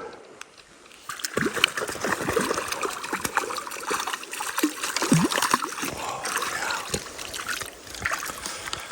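Close water splashing and dripping as a hooked trout is brought in, with many sharp little splashes starting about a second in.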